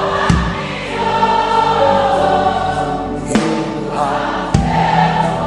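A choir singing a gospel worship chant over instrumental backing, with a few sharp hits.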